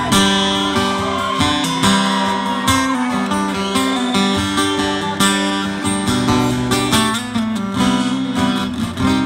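Solo acoustic guitar strummed in a steady rhythm, an instrumental passage of a live country song with no vocals.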